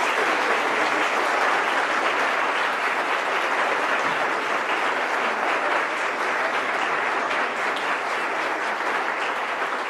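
Congregation applauding steadily after a baptism by immersion: a dense, continuous patter of many hands clapping.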